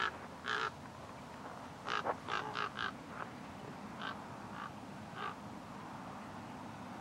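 Common ravens calling in flight: about ten short calls, with a quick run of five about two to three seconds in, then a few single calls that stop after about five seconds.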